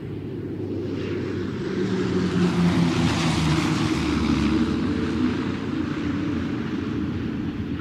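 Propeller plane flying past: a steady engine drone that swells to its loudest about three to four seconds in, then eases off slightly.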